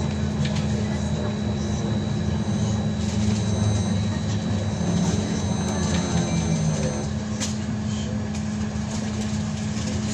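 Cabin noise of a BKM-321 trolleybus under way: a steady electric hum with a thin high whine that stops about seven seconds in, pitch glides partway through, and occasional clicks and rattles.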